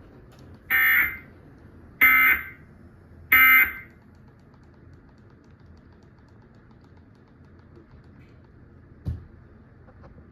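Emergency Alert System end-of-message signal: three short bursts of SAME digital data tones, a harsh buzzy warble about a second apart, signalling the end of the alert. After them comes a faint background hiss with one click near the end.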